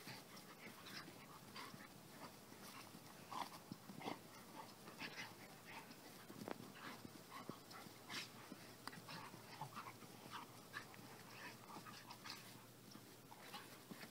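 Two dogs play-wrestling, one of them an American Indian Dog, heard faintly: scattered short, irregular dog noises from the tussle, with no steady rhythm.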